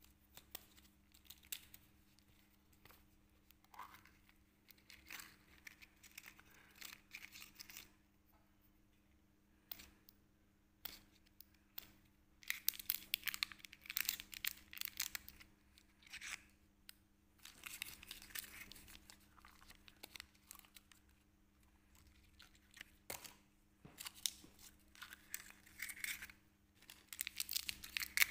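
Plastic chocolate wrapper crinkling and tearing as it is handled and opened, in irregular bursts, densest about halfway through and again near the end, with a few sharp clicks in between. A faint steady hum lies underneath.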